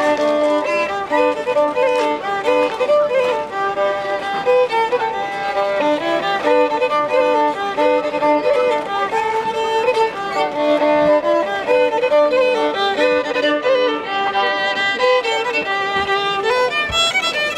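Background music: a lively fiddle tune played in quick, running notes.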